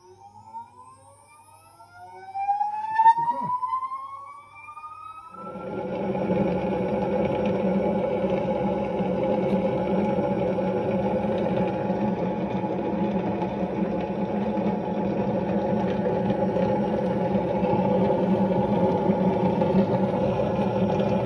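Resin-print wash station's motor spinning up with a rising whine, then running steadily, churning the cleaning solution with a loud even hum. There is a sharp knock about three seconds in.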